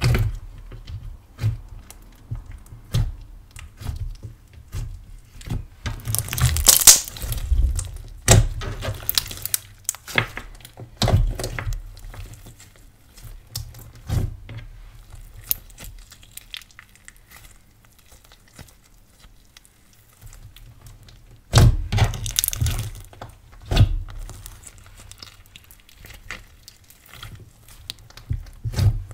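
Hands squeezing, pressing and folding a thick glossy pearl slime, giving irregular sticky crackles, pops and squelches. The louder clusters of crackling come about seven seconds in and again a little past twenty seconds, with a quieter stretch just before the second.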